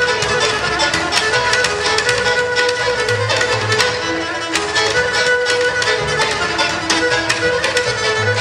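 Bulgarian folk trio playing a rachenitsa, a dance in 7/8 time: the bowed gadulka carries the melody over the quick plucked strumming of a tambura and a double bass line.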